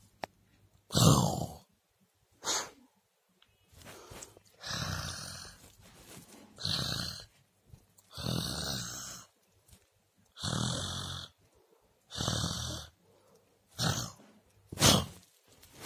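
Pug puppy breathing noisily through its short nose, with about nine rough, noisy breaths each lasting half a second to a second, every second or two.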